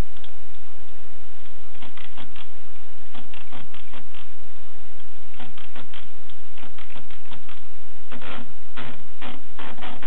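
Tippa typewriter's carriage and platen mechanism being worked by hand: irregular clusters of short mechanical clicks and ratcheting, busier and louder in the last two seconds.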